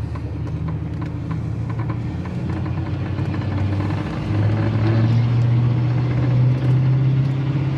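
1986 Chevrolet C10 pickup driving, its engine and road noise heard from inside the cab as a steady low hum. About four seconds in, the engine note rises and gets louder.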